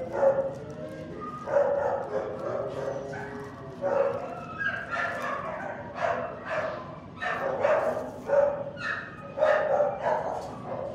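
Excited shelter dog barking and yipping over and over in short, pitched calls, some of them in quick runs.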